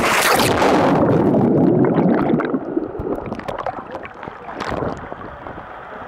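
Seawater splashing and gurgling around a swimmer's camera at the surface, with a sudden splash at the start and loud churning for about two and a half seconds, then quieter lapping with a few small splashes.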